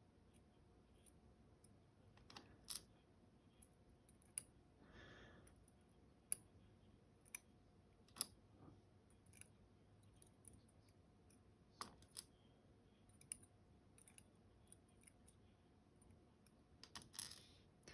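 Faint, irregular clicks of small metal lock parts, the euro cylinder's sliders, being taken out and set down one by one as the lock is disassembled, with a brief soft rustle of handling.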